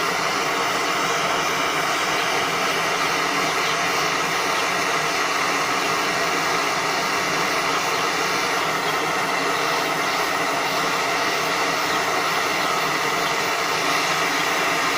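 Gas torch flame blowing steadily on a crucible, heating a melt of pure silver and tin for jeweller's silver solder that has not yet got hot enough.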